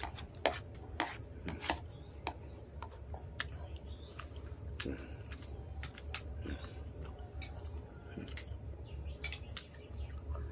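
A metal spoon clinking and scraping against a plastic bowl as food is scooped: several sharp clicks close together over the first couple of seconds, then fewer, scattered clicks. A steady low hum runs underneath.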